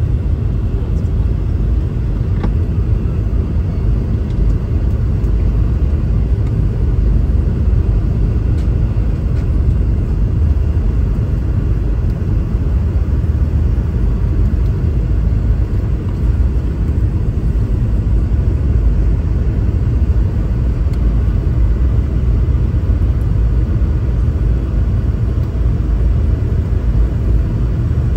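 Steady low rumble of cabin noise inside a Boeing 717 airliner in flight: airflow over the fuselage and its two rear-mounted Rolls-Royce BR715 turbofans running.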